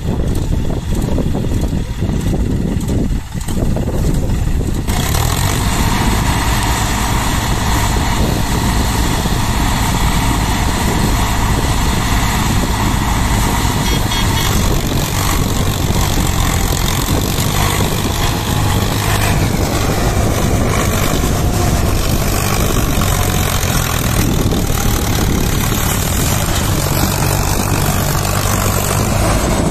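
Diesel tractor engines running hard, a green John Deere straining to pull a heavily loaded sugarcane trolley with a second tractor working alongside. The engine sound gets louder and harsher about five seconds in and stays high.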